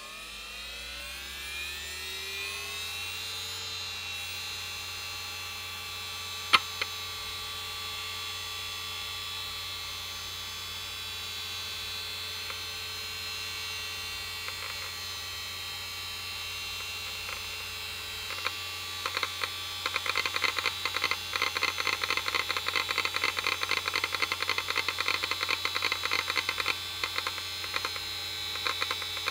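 Seagate ST51080N 1 GB SCSI hard drive spinning up: a rising whine that levels off into a steady hum, with one sharp click about six and a half seconds in. From about eighteen seconds on its heads seek in rapid, dense clicking chatter as the computer boots from it.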